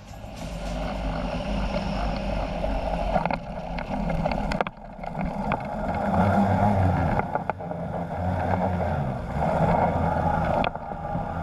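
Ultralight trike's engine and pusher propeller running steadily, with wind rushing over the microphone, as the ski-equipped trike touches down and slides on snow. A few sharp knocks are heard, about three seconds in, near five seconds and near the end.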